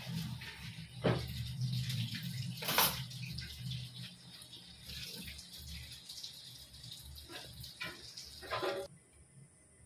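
Cooking oil poured from a bottle into an empty granite-coated cooking pot, a steady trickling pour with a few short knocks, over a low hum; it cuts off shortly before the end.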